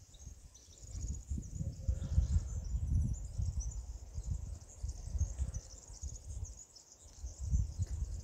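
Wind buffeting the microphone in an irregular low rumble, over a steady high chirping of insects and birds.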